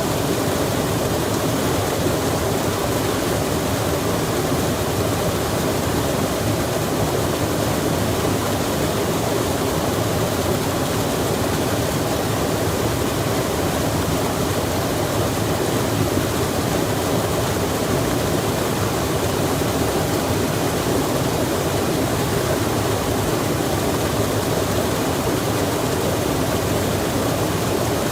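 Rain falling beside a rushing stream: a steady, unbroken wash of water noise that does not change.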